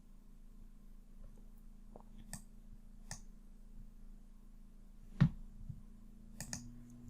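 A few computer mouse clicks a second or more apart, the loudest about five seconds in, over a faint steady low hum.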